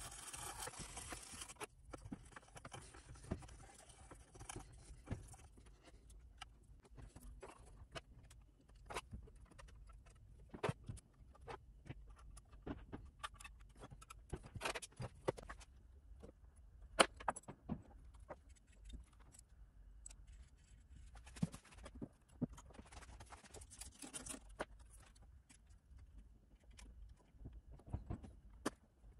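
Scattered small clicks, taps and light rattles of hands and small tools handling the metal and plastic parts of an amplifier's meter-lamp assembly. A short hiss at the start cuts off suddenly.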